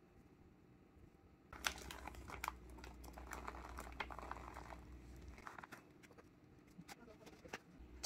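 Faint crinkling of a plastic bag of shredded mozzarella as the cheese is shaken out over fries in a bowl. It starts about a second and a half in, runs for about four seconds with a crackle of small clicks, then trails off into a few scattered ticks.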